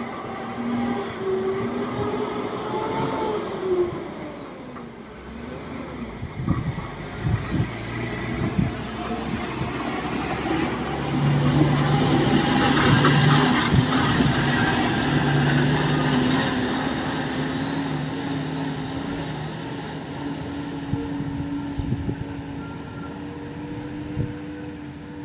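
Heavy diesel machinery at work, an excavator and tipper truck loading: engines running with a pitch that shifts now and then, with scattered knocks and clanks and a louder stretch in the middle.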